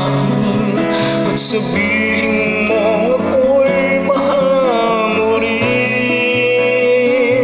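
Music: a song with a wavering, held singing melody over guitar accompaniment.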